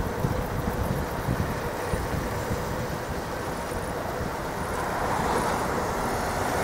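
Road traffic noise mixed with wind rumbling on the microphone of a moving bicycle. A vehicle grows louder towards the end.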